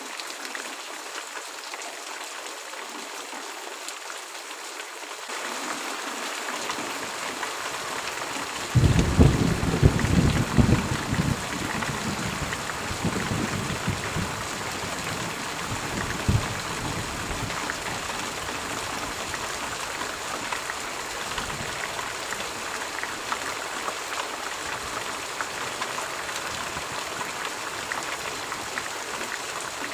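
Steady heavy rain pouring, growing fuller about five seconds in. A few seconds later a thunderclap cracks and rumbles, fading out over several seconds while the rain keeps falling.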